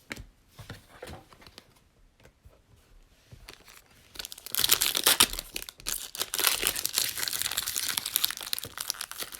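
Trading-card pack wrapper being torn open and crinkled, starting about four and a half seconds in after a few faint taps of cards being handled.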